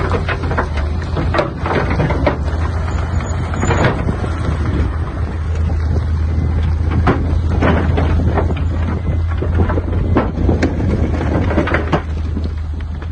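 Heavy earthmoving machine's diesel engine running steadily, with repeated irregular clattering and knocks of stone and rubble being moved.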